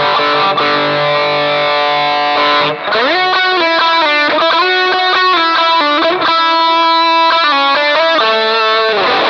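Electric guitar through a Shark TeTae Rock You Drive distortion pedal boosted by a Shark The Gain Drive-Booster: a held distorted chord for about three seconds, then a single-note lead line with string bends.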